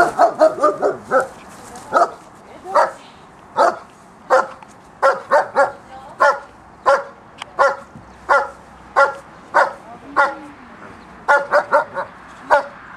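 Czechoslovakian wolfdog barking at a helper in a protection-training blind, the bark-and-hold part of bite work. The barks are short and sharp, repeated steadily at about two a second, with quicker runs near the start and again near the end.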